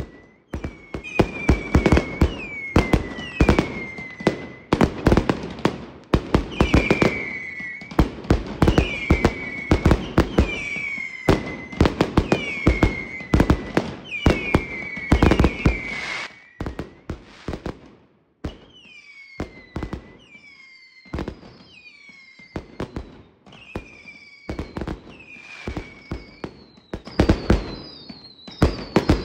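Fireworks going off in dense volleys of sharp bangs and crackle, with a whistle falling in pitch about once a second. The barrage thins out a little past the middle and grows loud again near the end.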